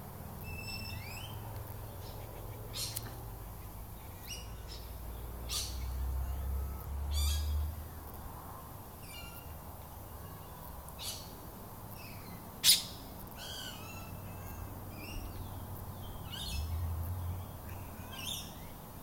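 Short bird chirps and squawking calls at irregular intervals, with one sharp click about two-thirds of the way through.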